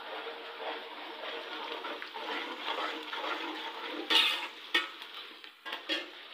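Water running into a kitchen sink, a steady rushing hiss, with a sharp clatter about four seconds in and a few lighter knocks near the end.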